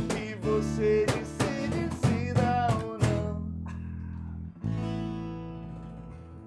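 Band playing the last bars of a song, with strummed acoustic guitar and a sung line for the first half. The final chords then ring out and fade.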